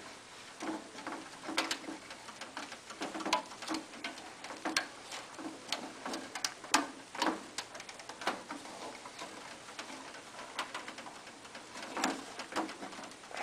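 Faint, irregular clicks and taps of stiff 10-gauge wires being bent and pushed into a metal electrical box, one or two a second.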